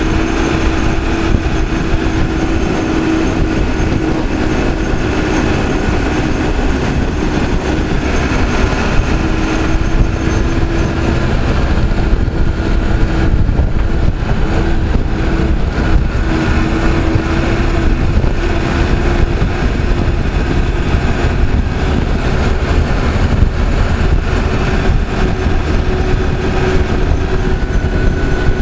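Caterpillar 416C backhoe loader's diesel engine running steadily as the machine is driven at speed: a constant loud rumble with a steady tone on top.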